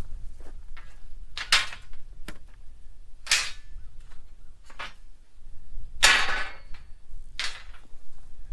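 Four short bursts of a cordless impact wrench hammering on quarter-20 bolts, with faint clicks and knocks in between.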